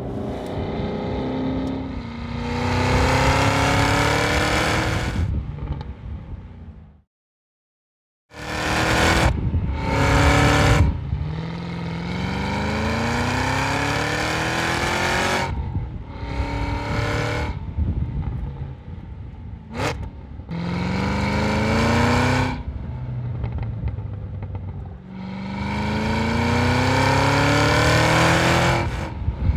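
Cadillac CT5-V Blackwing's supercharged 6.2-liter V-8 exhaust under hard acceleration: several pulls with the pitch climbing steadily, broken by short rev blips and drops. The sound cuts out for about a second about seven seconds in.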